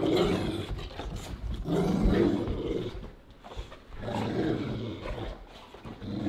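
Two Cane Corsos, an adult and a puppy, growling in a play fight: rough growls in loud bursts about every two seconds, play rather than aggression.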